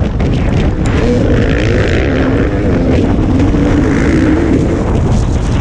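Dirt bike engine running hard under load, its pitch rising and falling as the throttle changes, with the rush of riding noise underneath. A second dirt bike runs close alongside.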